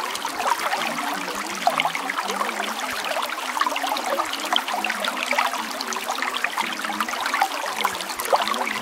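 Running water trickling and babbling steadily, like a small stream, with a fine, even splashing texture and no pauses.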